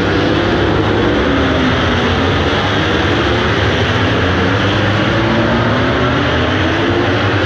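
A pack of MotoGP racing motorcycles' 1000 cc four-cylinder engines going past at race speed. It is a steady, loud wall of overlapping engine notes, each rising and falling in pitch as the bikes rev and change gear.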